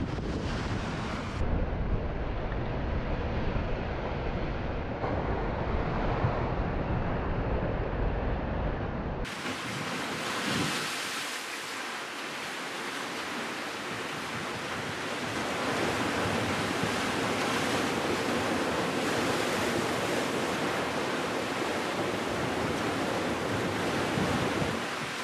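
Sea waves washing against a rocky shore. For the first nine seconds or so, wind rumbles heavily on the microphone. After a sudden change, steady surf is heard without the wind rumble.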